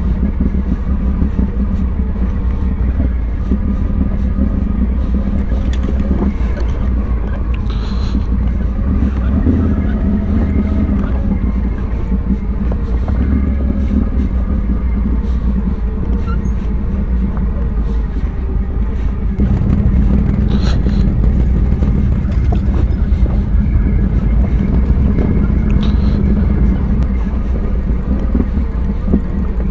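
ATV engine running steadily at low revs, growing louder about two-thirds of the way through.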